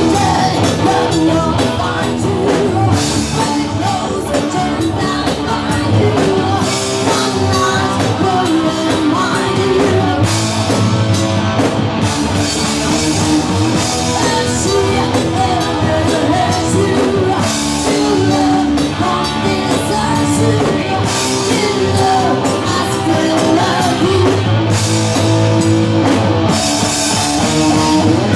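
Live rock band: a woman singing into a microphone over electric guitar, bass guitar and a drum kit.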